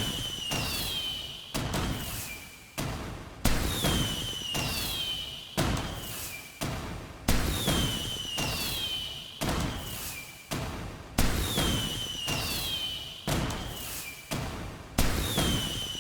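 Fireworks bursting: a sharp bang about every two seconds, the bigger ones each followed by a high whistle that falls in pitch over about a second, in a pattern that repeats every few seconds.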